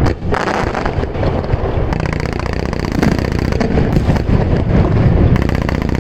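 Aerial fireworks going off in quick succession: overlapping booms with a dense run of rapid crackles from about two seconds in.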